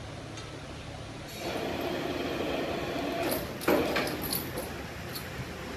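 Metalworking noise: a steady grating machine-like sound starts about a second in, with a few sharp metal clanks, the loudest a little past halfway.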